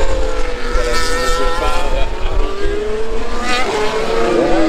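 Formula 1 cars' turbocharged V6 hybrid engines running on track, several engine notes overlapping, their pitch rising and falling as the cars accelerate and pass.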